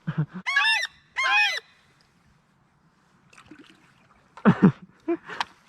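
Two honks from a goose, one shortly after the other, then a short loud burst of noise near the end.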